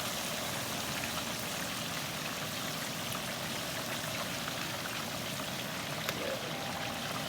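Whole turkey deep-frying in a pot of hot oil just after being lowered in: a steady, dense bubbling and crackling with scattered faint ticks.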